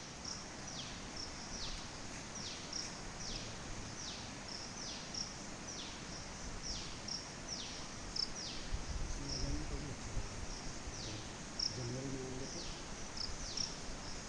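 A bird calling over and over in short, high notes that each slide downward, roughly two a second, with brief higher chirps between them, over a steady hiss.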